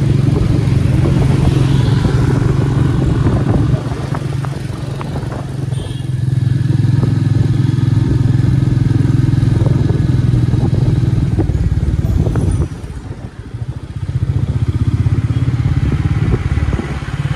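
Motorcycle engine running while riding. It eases off about four seconds in, picks up again around six seconds, and drops away briefly about three-quarters through before coming back.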